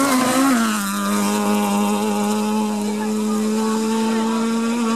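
Rally car engine, a Lada Samara-type hatchback, running hard at high revs on gravel. Its note drops in pitch about a second in as the car passes close by, then holds a steady drone as it drives off down the stage.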